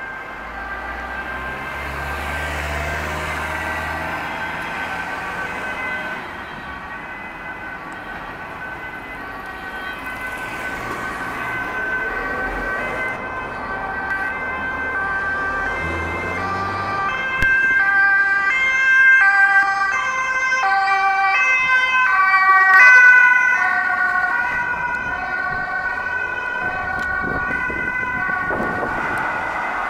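Dutch ambulance siren sounding its two-tone call, alternating between a high and a low note, growing louder and peaking twice in the second half as the ambulance passes close. Engine and traffic noise run underneath.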